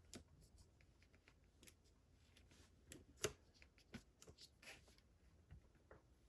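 Faint, scattered small clicks and taps of small metal hand tools being handled, with one sharper tap about three seconds in.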